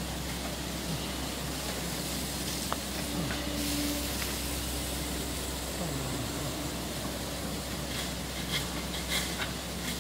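Tracked hydraulic excavator's engine running with a low steady hum and a few falling whines, under a steady hiss. A few short clicks come near the end.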